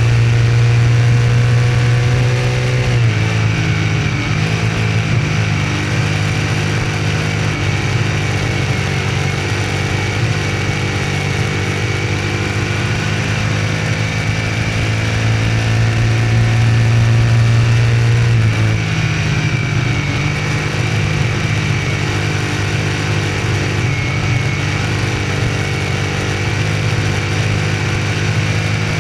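Small-block V8 of a Troyer TD1 dirt modified race car running hard at speed on track. Its note shifts about three seconds in and again about two-thirds of the way through, as the throttle changes between straightaway and turns.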